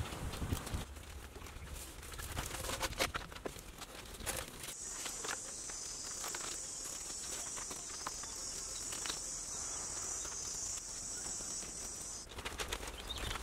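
Light clicks and knocks of bamboo poles being handled and tied, then a steady high-pitched insect drone that starts about five seconds in and cuts off suddenly near the end.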